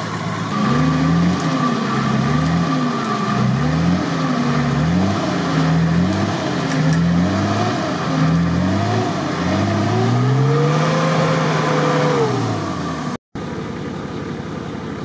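Off-road 4x4's engine revving up and down over and over, about once every second and a half, as it is winched and driven through deep mud, then a longer, higher rev. About 13 seconds in it cuts off, giving way to a fainter, steady engine sound.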